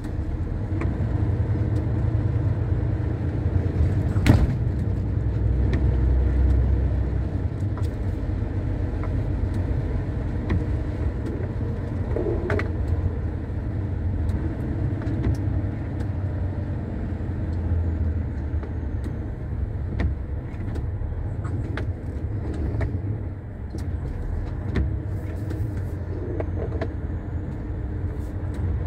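Truck's engine and tyres droning steadily at road speed, heard from inside the cab as a deep low rumble, with a few light clicks and one sharper click about four seconds in.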